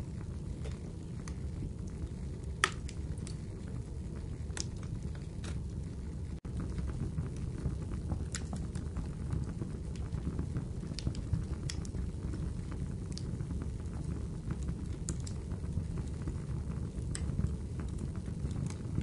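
Steady low rumbling ambience with sparse light crackles and ticks scattered through it, and one sharper crack about three seconds in. The sound cuts out for an instant about six seconds in.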